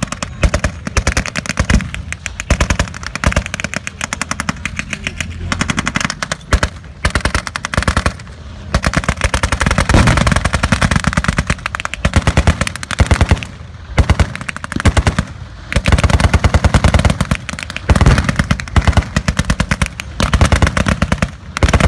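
Machine-gun fire with blanks in rapid bursts, many shots a second, each burst lasting one to a few seconds with short pauses between, overlapping throughout. A low steady hum of tank engines runs beneath.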